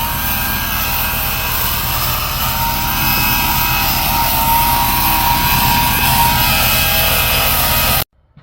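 A large engine running steadily under load, with a fast low throb and a thin whine above it; it cuts off abruptly near the end.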